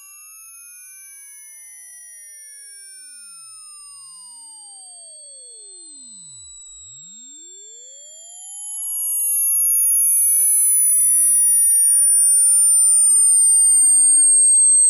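A pure sine test tone for a hearing test, gliding steadily downward from very high, around 14 kHz, to about 9 kHz. It starts near the upper limit of hearing so the listener can note when it becomes audible.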